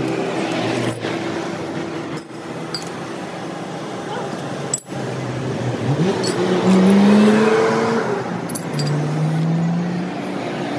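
Steady street-traffic noise, with one vehicle engine revving upward about six seconds in and then holding its pitch. A few light metal clinks near the end come from differential gears and the spider being handled.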